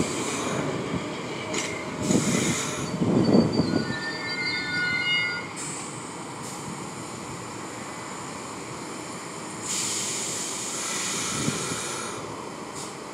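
New York City subway train rolling past, its steel wheels clattering and rumbling over the track, with a brief squeal of several high tones about four seconds in.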